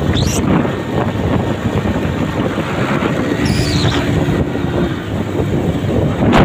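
Motorcycle running while being ridden along a road, its engine noise mixed with the steady rush of air past the microphone.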